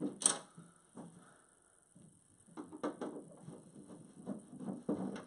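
Screwdriver backing screws out of a dehumidifier's plastic back cover: irregular clicks and scrapes of the tool and screws against the plastic. There is a sharp click at the start, then a quieter moment, and a busier run of clicks from about halfway through.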